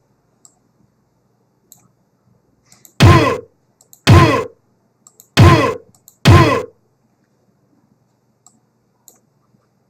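A short cartoon sound effect played back four times in two pairs, each a loud half-second burst whose pitch falls. Faint mouse clicks fall between the plays.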